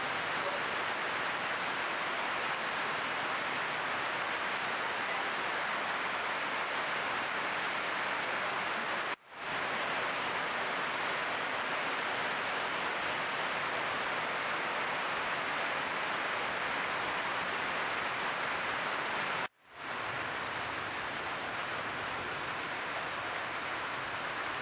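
Hail and heavy rain pelting a paved street: a dense, steady rushing clatter that cuts out briefly twice.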